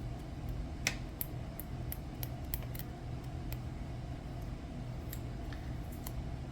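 Fingers handling a roll of washi tape and picking for its end: scattered light clicks and crinkles, over a steady low background hum.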